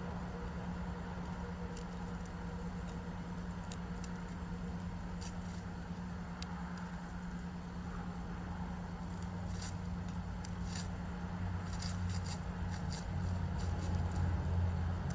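A steady low hum, like a motor or distant traffic, that swells somewhat in the last few seconds, with scattered faint light clicks and ticks over it.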